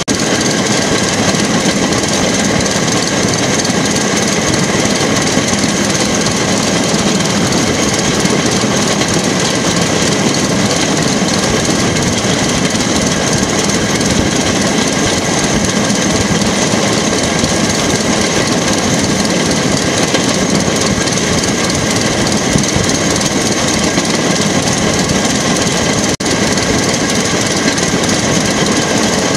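Motorised rail track car (jigger) travelling along the line: its small engine runs steadily under load, mixed with the rumble of its wheels on the rails.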